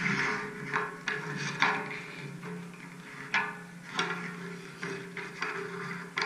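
Hockey sticks slapping pucks on ice: several sharp cracks at uneven intervals, over background music.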